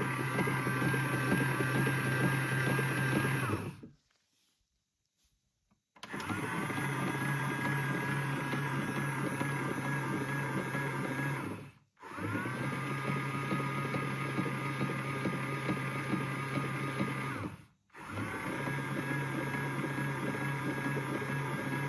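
Toy washing machine's battery-powered drum motor running with a steady whir and whine. It stops about four seconds in and starts again two seconds later, then cuts out briefly twice more; each start has a short rising whine.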